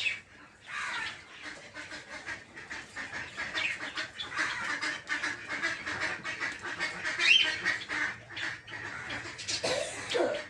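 A flock of peach-faced lovebirds chattering, many overlapping sharp chirps and harsh squawks, with a few rising calls.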